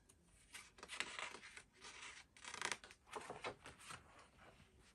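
Faint rustling and rubbing of a picture book's paper page being turned by hand, in several short scrapes.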